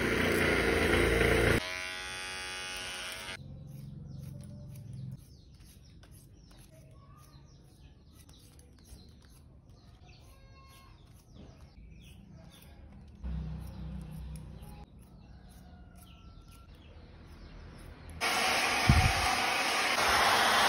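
A cordless hair clipper buzzes for the first few seconds. A long quiet stretch follows with faint bird chirps. Near the end a handheld hair dryer switches on and blows loudly.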